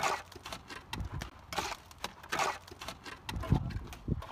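Plastering trowel working cement mortar from a hand-held pan and onto a wall: irregular scrapes and sharp knocks, with a couple of duller thumps near the end.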